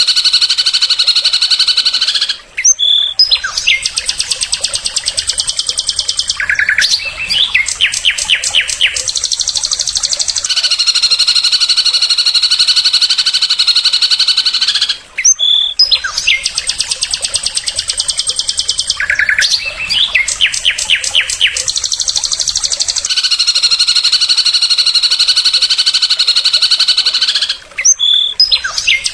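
Recorded songbird song repeating as a loop about every 12 seconds: a long fast trill, a brief break with a sharp note, then rapid chattering and a run of loud, quickly repeated notes, the same phrase heard three times.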